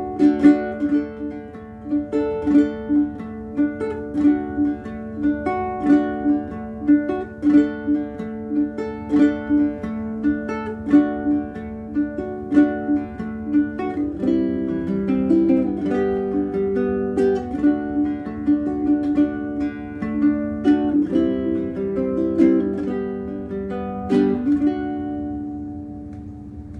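Bruko mahogany baritone ukulele with a bone saddle, played as a solo. A repeating plucked pattern becomes fuller chords about halfway through, and the last notes ring out and fade near the end. The owner says the bone saddle has improved the volume and resonance and brightened the tone a little.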